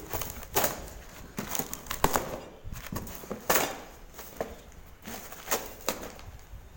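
Packaging being handled and opened: irregular rustling, crinkling and sharp clicks of a refnet kit's box and wrapping being worked open by hand.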